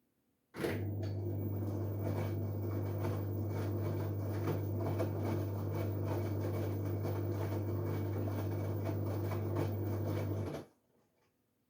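LG Direct Drive washing machine drum turning during the wash: a steady low motor hum with irregular knocks and swishes from the load, starting abruptly about half a second in and stopping about ten seconds later.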